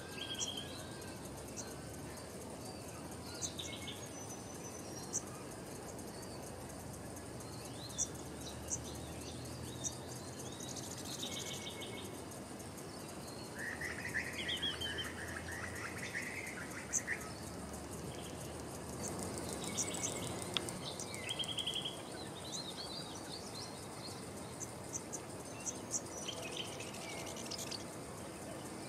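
Wild birds chirping and calling now and then, with a longer warbling passage near the middle, over a steady high insect trill.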